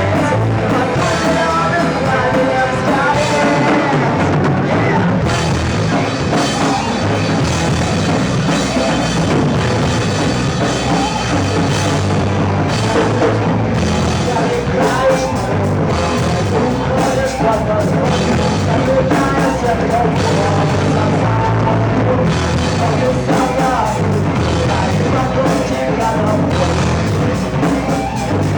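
Rock band playing live at full volume, with the drum kit prominent under the pitched instrumental lines.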